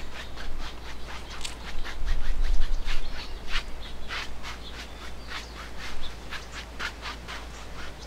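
Bristle paintbrush scrubbing paint across a stretched canvas: a run of short, scratchy strokes at an uneven pace, a few a second.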